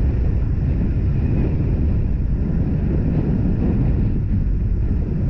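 Wind buffeting the microphone over the steady running of a Yamaha 40 hp outboard motor driving an inflatable boat along the river.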